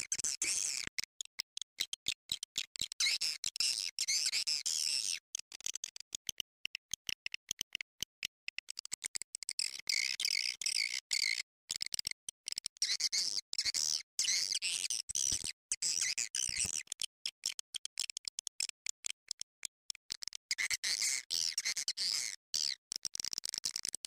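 Swiftlet call recording, the lure sound played in swiftlet nesting houses: dense, rapid high-pitched twittering chirps broken by many short gaps. The chirping thins out for a few seconds about a quarter of the way in and again about three quarters in.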